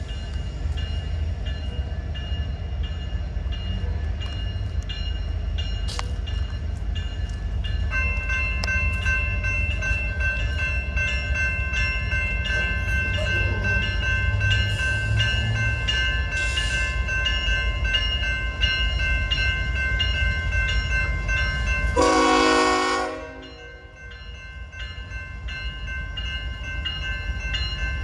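Railroad crossing bells ringing steadily as the crossing signals flash, with a second set of bell tones joining about eight seconds in, over a steady low rumble. Near the end a train horn sounds one blast of about a second and a half.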